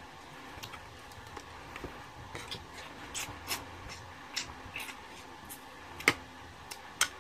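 Table eating sounds: scattered light clicks of spoons against plastic plates and of seafood shells, mixed with chewing, with two sharper clicks near the end.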